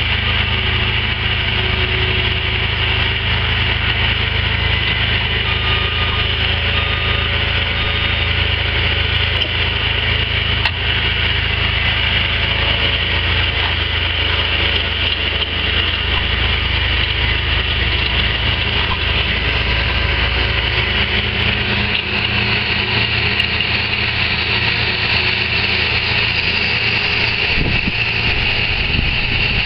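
Backpack leaf blower running steadily at high speed, its small engine whining as it blows milled asphalt debris off the street edge, with a steady low engine rumble underneath.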